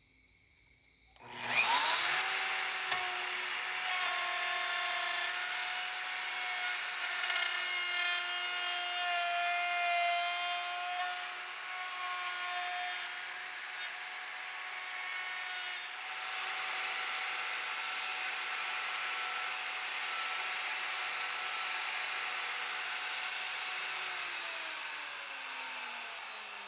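Plunge router switched on about a second in, spinning up to speed and running with a steady whine as its bit skims about a millimetre off the soft spalted wood to flatten a guitar's neck pocket. Near the end it is switched off and winds down, its pitch falling.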